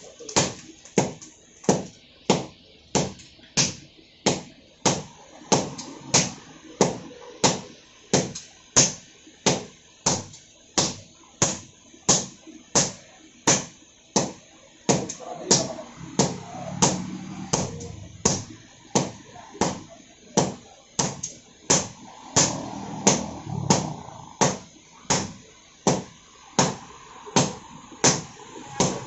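Two strikers taking turns with sledgehammers on red-hot iron on an anvil, hand-forging a blade. Sharp metal strikes fall in a steady, even rhythm of about three blows every two seconds.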